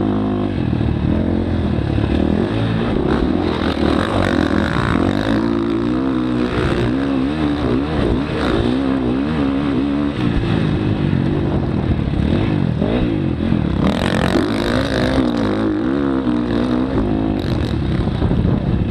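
Motocross dirt bike engine heard close up while riding, its pitch repeatedly climbing and dropping as the throttle opens and closes through the track's bumps and turns.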